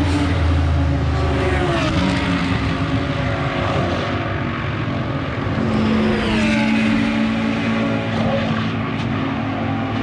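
Several track-day cars at speed on the circuit, their engine notes overlapping; around six seconds in one passes with a falling pitch while another holds a steady note.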